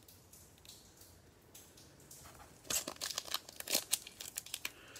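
Plastic wrapper of a Prizm baseball cello pack being torn open: faint rustling, then from about halfway through a quick run of sharp crinkles and crackles as the wrapper rips.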